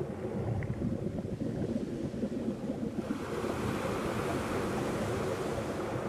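Sea waves on a shore: a steady low rumble of surf, with a wave breaking and hissing up the beach about halfway through.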